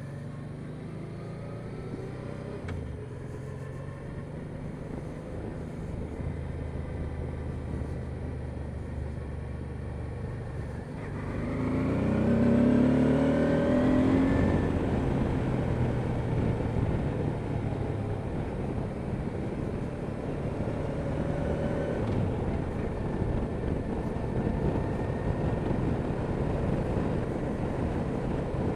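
1999 Honda Deauville NT650V's V-twin engine running under a rider on the move, with wind and road rush. About eleven seconds in, the engine note rises and the whole sound gets louder as the bike picks up speed.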